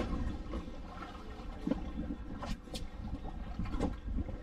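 Water sloshing and lapping against the side of a small fishing boat over a steady low rumble, with a few sharp knocks or clicks through the middle.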